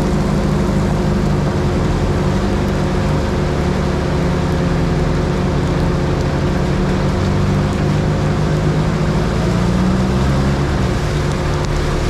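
Car driving in the rain: steady engine and road noise, a low rumble with a constant hum and a hiss over it.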